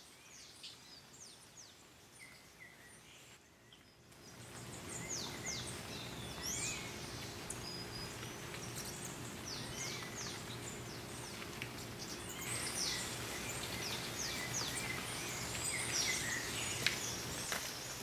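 Cloud forest birds calling, many short, quick chirps that slide downward, over a steady outdoor hiss that comes in about four seconds in and grows louder near the end.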